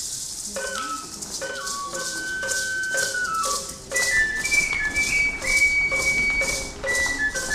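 Traditional Totonac-style flute-and-drum music: one musician plays a high cane flute melody of held, stepping notes over an even drum beat with a rattling sound. The tune breaks off briefly at the start and picks up again about half a second in.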